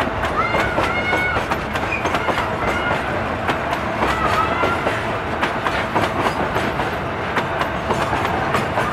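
Loaded freight train rolling past, its wagon wheels clacking over the rail joints in a rapid irregular series over a steady rumble.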